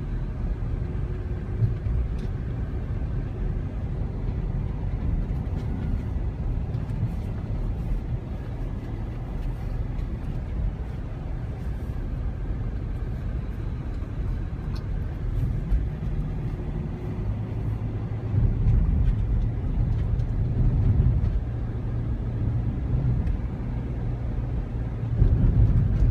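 A car driving, heard from inside the cabin: a steady low rumble of engine and road noise, louder for a few seconds about two-thirds of the way through and again near the end.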